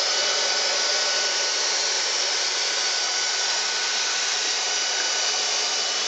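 Dyson DC44 Animal cordless stick vacuum running steadily: a constant rush of air with a thin high whine held on top.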